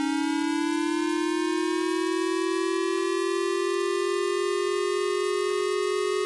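J-Alert civil protection warning siren: a synthetic siren tone, rich in overtones, that slowly rises in pitch and starts to fall near the end. It sounds ahead of a missile-launch alert.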